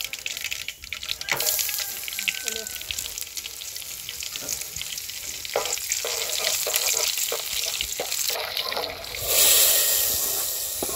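Hot oil sizzling in a pan with mustard seeds popping and crackling as they splutter for a tempering. Near the end a loud hiss rises as the hot tempering is poured into the pot of rice and vegetables, then dies down.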